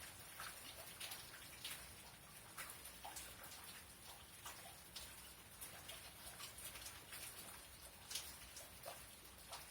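Faint rain during a thunderstorm: scattered drops ticking irregularly, a few a second, over a light steady hiss.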